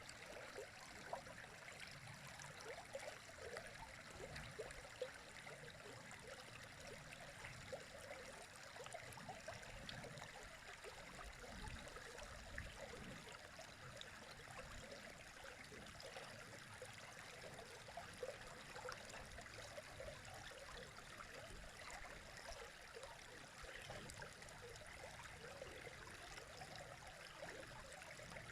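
River water running over stones: a steady, quiet babble with many small splashes and gurgles.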